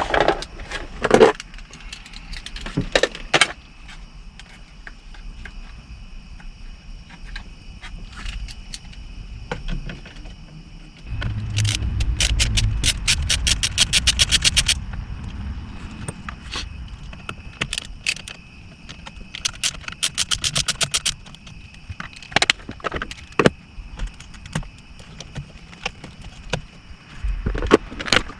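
Metal hand tools clinking and scraping as fasteners are taken out of a car's steering wheel. A ratchet wrench makes two runs of rapid, even clicking, one near the middle and a shorter one a few seconds later.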